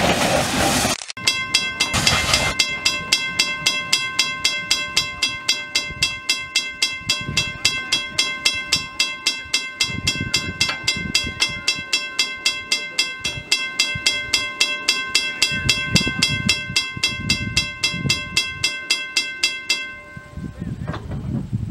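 Norfolk and Western No. 611, a 4-8-4 steam locomotive, passes close with a loud rushing roar for about a second. Then comes a long, steady whistle tone over an even beat of exhaust chuffs, about three a second, and both stop together near the end.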